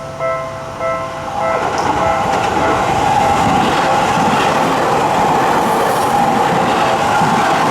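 Japanese level-crossing alarm bell dinging about every 0.6 s. About a second and a half in, a Seibu Ikebukuro Line electric train runs through the crossing, and its loud, steady running noise covers the bell.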